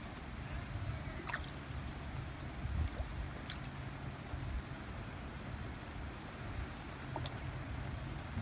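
Steady rain falling on open water, over a low rumble, with a few small sharp drips or splashes scattered through.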